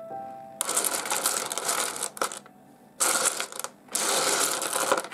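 Pieces of rough opal clattering and rattling against each other as a hand rummages through a pile of stones, in three spells of a second or so with short pauses between.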